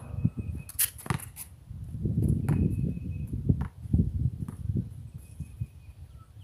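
A basketball shot striking the hoop with sharp impacts about a second in, then the ball bouncing on the concrete court and sneaker footsteps.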